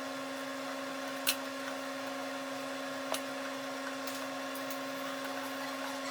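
Electric power tool motor running at a steady pitch, with a few sharp clicks: one about a second in, one near the middle and one right at the end.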